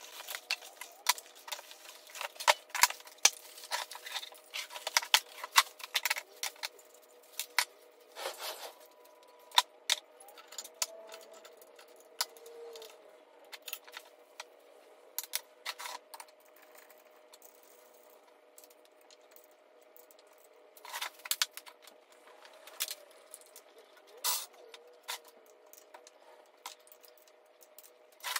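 Handling noise from unpacking a boxed benchtop belt and disc sander and fitting its parts: frequent sharp clicks, knocks and rattles of cardboard, packaging and metal parts, busiest in the first half, over a faint steady hum.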